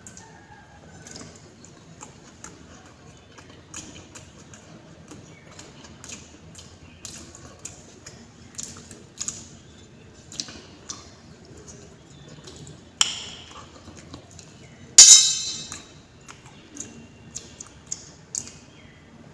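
Eating at close range: many small clicks and smacks of chewing, with light clinks of fingers and food against a steel plate. Two louder sharp clanks come about 13 and 15 seconds in, the second the loudest, with a short ringing tail.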